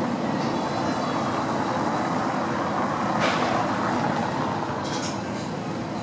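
Steady street traffic noise with a vehicle engine's constant low hum, and one short sharp click about three seconds in.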